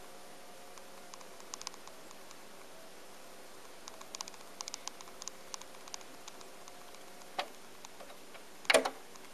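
Onkyo PL-25F linear-tracking turntable with its tonearm carriage being driven across the record under search. There is a faint steady whine from the drive with scattered light ticks, which stops with a click about seven seconds in. Near the end comes a sharper double knock.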